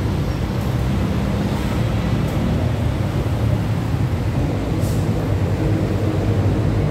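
Steady low rumble of idling passenger-van engines and road traffic.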